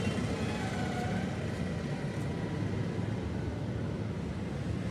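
Steady low background rumble with no distinct knocks or clicks.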